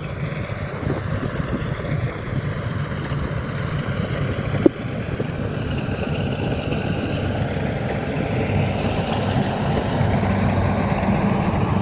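A small engine running steadily, growing slowly louder, with one sharp click about halfway through.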